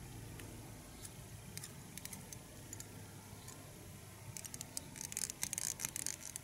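Faint small clicks and scratches of thread being wrapped onto a dry fly held in a fly-tying vise, sparse at first and coming thick and fast in the last couple of seconds, over a low steady hum.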